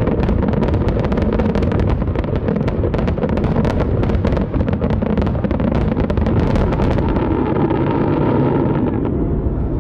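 Aerial fireworks going off in a dense barrage: a steady booming rumble packed with many sharp crackling reports, thinning out near the end.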